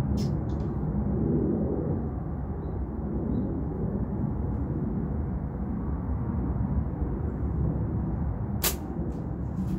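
Flat rubber bands of a slingshot released for a shot: one sharp snap near the end, followed by a couple of faint clicks. A few faint clicks of the slingshot being loaded come near the start, over a steady low rumble.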